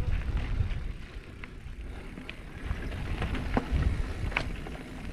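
Mountain bike riding along a dirt trail: a low rumble of wind on the microphone and tyres on the ground, with scattered sharp clicks and rattles from the bike, the loudest a little past halfway.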